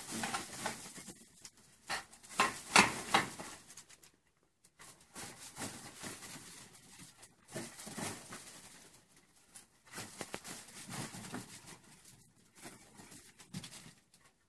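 Hanging bunches of golden seedless grapes drying into raisins rustle and brush against their strings as someone pushes through them. The rustling comes in irregular bursts, with a short pause about four seconds in.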